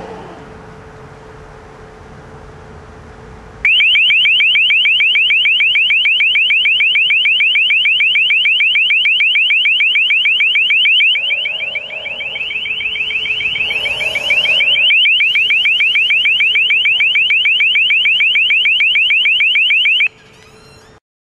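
LRAD long-range acoustic hailing device sounding its warning tone: a loud, shrill warble that pulses several times a second. It starts suddenly a few seconds in, dips in level for a few seconds in the middle, and cuts off abruptly near the end.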